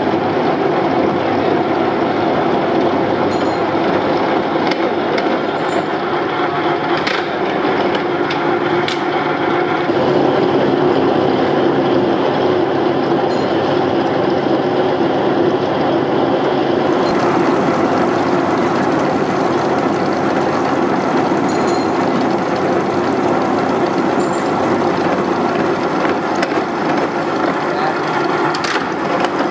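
Gear hobbing machine running steadily as its hob cuts teeth into a stack of steel sprocket blanks under a stream of cutting coolant, with a few light ticks.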